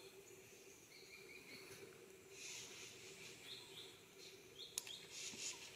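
Near silence: faint forest ambience with a few soft, short bird chirps and a low steady hum.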